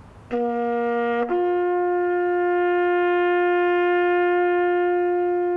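Solo brass bugle call: a short lower note, then a long, steady note a fifth higher.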